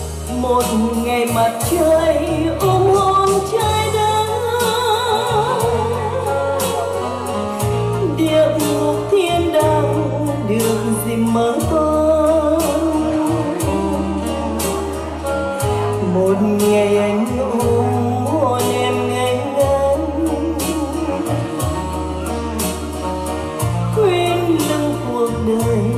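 A woman singing into a microphone, with vibrato on her held notes, over an instrumental accompaniment with a steady bass line.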